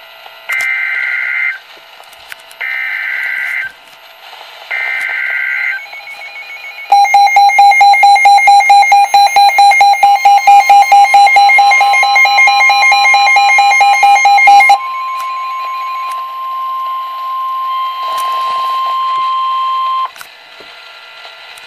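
Emergency Alert System signal for a National Weather Service warning: three one-second bursts of the digital SAME header data warble, then a loud, rapidly pulsing electronic beeping alarm for about eight seconds. Overlapping it, the steady NWS warning alarm tone starts about ten seconds in, holds for about ten seconds and cuts off suddenly.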